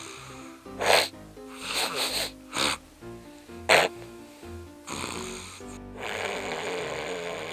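A person snoring loudly over background music: several short, separate snores in the first half, then a longer snore in the second half.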